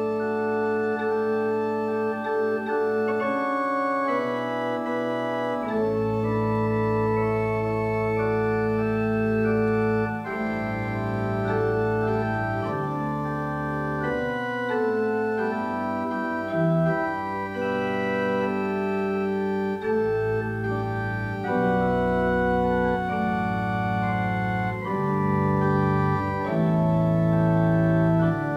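Organ playing slow, held chords, with low bass notes joining about five and a half seconds in.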